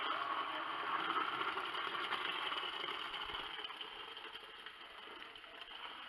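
Cooked seeds and their cooking water poured from a large metal pot into a plastic bucket: a steady splashing pour that gradually tails off over the last few seconds as the pot empties.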